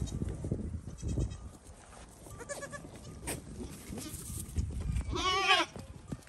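A goat bleats once, loud and wavering, about five seconds in, after a fainter short bleat a couple of seconds earlier. Low scuffling of hooves on the dirt path runs underneath as the goats run past.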